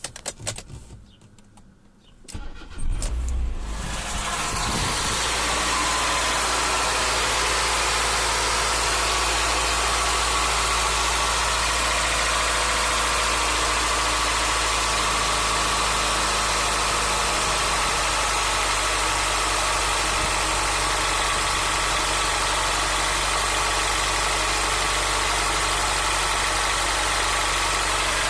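Nissan SR20DE 2.0-litre inline-four engine cranking and catching about three seconds in, then settling into a steady idle. The owner is recording it for a knock (стук) in the engine.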